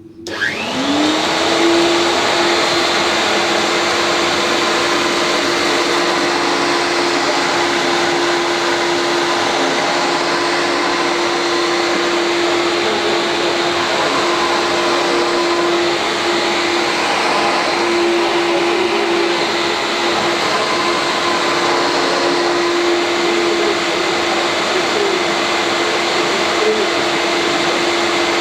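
Vacuum cleaner switched on: the motor spins up with a rising whine in the first second, then runs steadily with a loud, even whine and rushing air.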